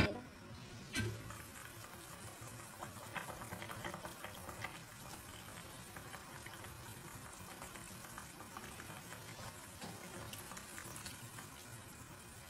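Chicken broth boiling in a large steel pot, a low bubbling with scattered faint pops, densest a few seconds in. A single knock about a second in.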